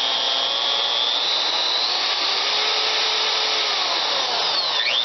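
DeWalt DWM120K deep-cut portable band saw running free with no cut, a steady motor-and-blade whine whose pitch rises over the first two seconds and falls near the end as the variable-speed knob is turned.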